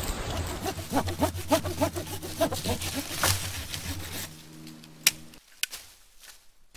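Folding hand saw cutting through a thin green sapling near its base: a quick run of rasping back-and-forth strokes. Then it goes quieter, with a single sharp click.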